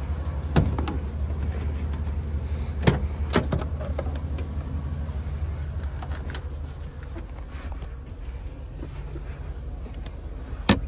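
Dodge Ram van side door latch clicking open and the door and its hardware knocking: a sharp click about half a second in, two knocks close together around three seconds in, and another near the end, over a steady low hum.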